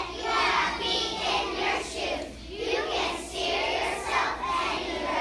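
A group of kindergarten-age children singing a song together in unison.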